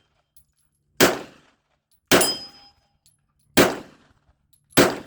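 Four .45 ACP pistol shots about a second apart, irregularly spaced, each followed by a brief metallic ring of a steel target being hit.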